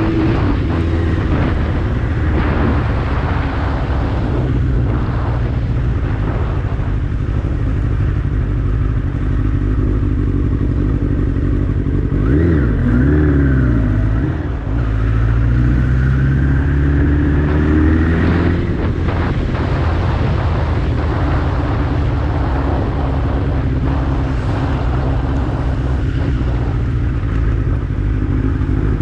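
Suzuki GSX-R slabside streetfighter's inline-four engine running under way on a test ride. About twelve seconds in the revs rise and fall quickly, dip for a moment, then climb steadily through a gear for a few seconds before settling back to a steady run.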